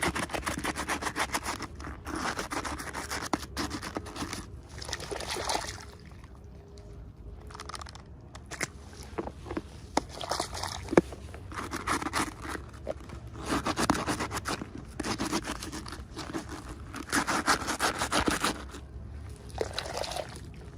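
Packaging being handled and opened: crinkling, scraping and rustling in repeated bursts of a few seconds each, with short quieter pauses between.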